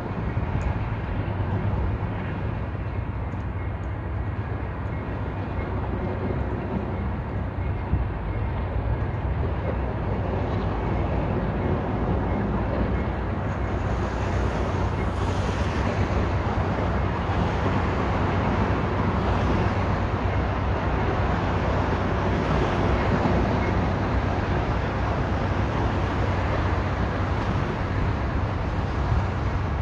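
Freight train rolling past: a steady rumble of wheels on rail, growing slightly louder about halfway through, with wind on the microphone.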